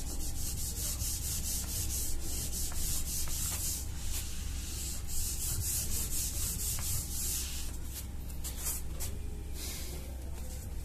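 Whiteboard duster rubbing across a whiteboard in repeated back-and-forth strokes, a dry scrubbing hiss. The strokes grow sparser near the end as the board is wiped clean.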